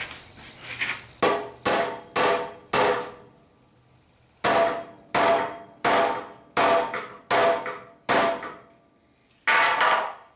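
Hammer blows driving a hand-forged square-shank nail hook into a redwood board: a run of about six strikes, a short pause, then about six or seven harder, evenly paced strikes with a short metallic ring after each, and one last blow near the end.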